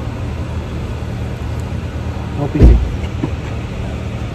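Steady low hum of a vehicle engine running, with one loud low thump about two and a half seconds in.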